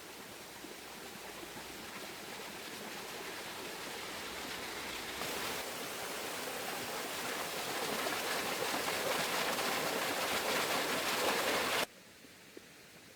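Running water rushing steadily, growing louder with a step up about five seconds in, then cutting off abruptly near the end.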